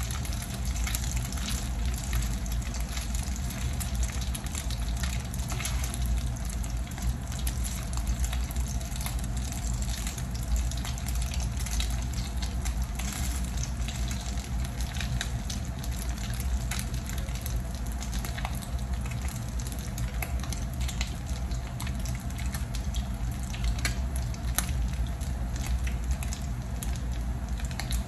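Beef and egg patties sizzling in hot oil in a frying pan, a steady crackle of many small pops.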